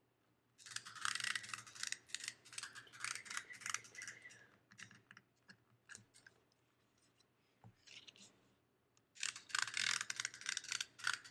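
Glue tape roller being drawn across paper, a crackly, clicking scratch as the adhesive is laid down. It comes in two runs, one from about half a second in and another near the end, with a few single clicks between.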